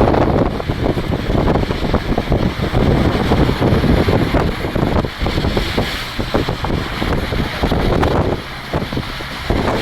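Strong, gusty wind buffeting the microphone in a loud, uneven rush with rapid irregular thumps, briefly easing a little near the end.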